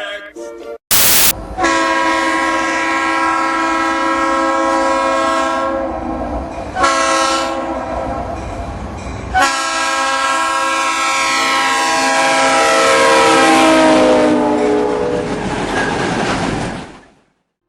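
Leslie RS3L three-chime locomotive horn sounding in three long blasts, the last one sliding down in pitch as the train passes. A short, sharp burst comes about a second in, before the first blast.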